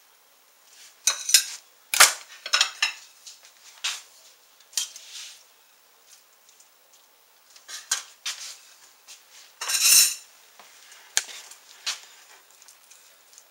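Utensils clinking and scraping against a ceramic plate and a metal skillet as food is dished up: short clinks at uneven intervals, with a longer scrape about ten seconds in.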